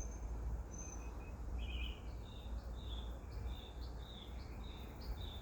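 Faint bird chirps: short high notes, repeated about twice a second through the second half, over a steady low rumble.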